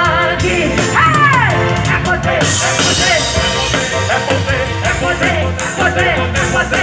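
Live band playing an upbeat gospel song with a steady bass beat, with a voice singing over it; a sliding note falls in pitch about a second in.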